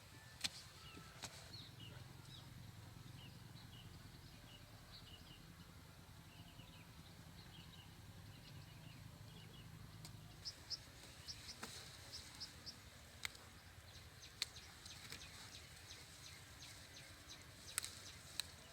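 Faint rural outdoor ambience: small birds chirping in quick runs of short high notes, with a few sharp clicks or knocks scattered through.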